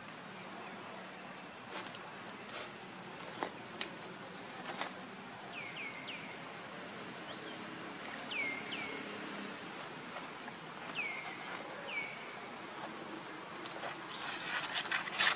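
Steady high-pitched insect drone. Pairs of short, falling chirps come every few seconds, with scattered clicks, and a burst of rustling near the end.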